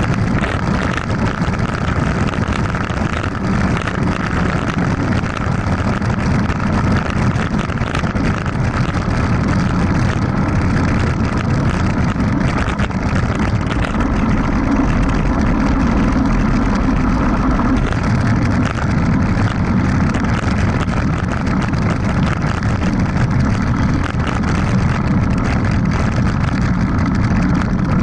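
Wind buffeting an action camera's microphone and mountain-bike tyres rumbling over a dirt road on a fast downhill ride: a loud, steady rushing noise.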